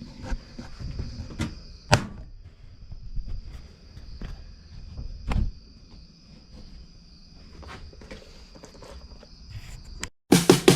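Crickets chirring steadily, with scattered knocks and clunks of tools and metal being handled, the sharpest about two seconds in. Near the end it cuts abruptly to music with drums.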